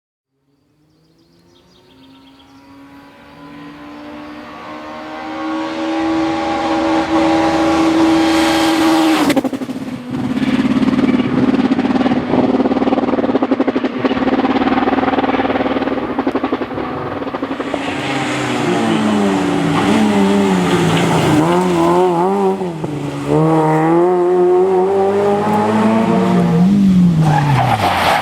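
Rally car engine approaching at high revs, growing steadily louder, with a sudden change in tone about nine seconds in as it passes. In the later part the revs rise and fall over and over as the driver works the throttle and shifts through the gears.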